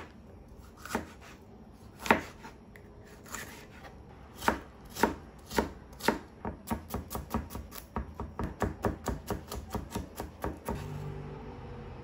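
Chef's knife chopping vegetables on a plastic cutting board: a few spaced single cuts at first, then a quick run of chops about five a second that stops about a second before the end, leaving a faint low hum.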